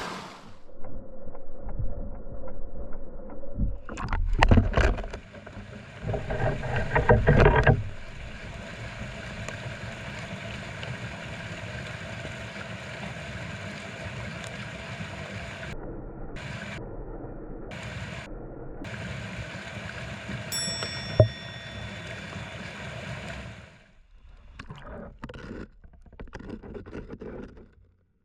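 Steady rush of mountain stream water, with loud, low rumbling bursts about four and six to eight seconds in, and a single sharp knock about two-thirds of the way through.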